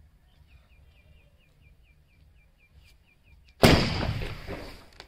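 Big aerial 'sky shot' firework launching from its tube about three and a half seconds in: a sudden loud blast followed by a rushing hiss of sparks that fades away over about a second.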